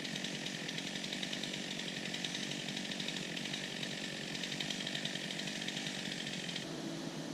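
Chainsaw running steadily with a high, even buzz. About a second before the end it gives way to a lower, steady engine hum.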